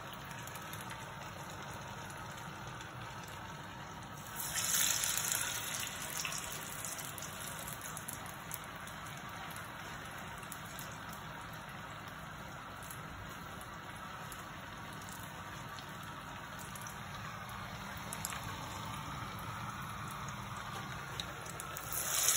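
Cassava vadai deep-frying in a pan of hot oil, a steady bubbling sizzle. The sizzle flares louder and hissier twice, about four seconds in and again near the end, as a fresh patty goes into the oil.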